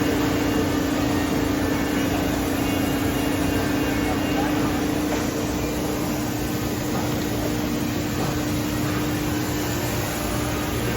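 CNT Motion 5×10 CNC router running: a steady machine hum with a constant mid-pitched tone.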